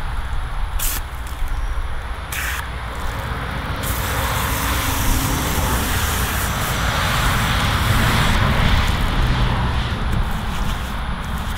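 Corded electric hair clippers buzzing steadily while cutting hair, with a low hum under a hiss that swells a little past the middle.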